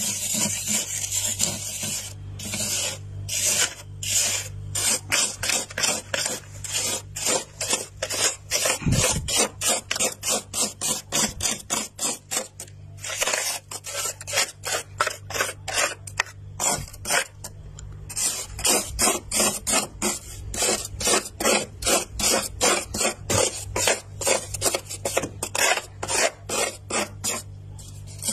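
Flaky freezer frost scraped off the freezer wall with a small hand-held utensil, in quick repeated strokes of about three a second, with a brief pause midway.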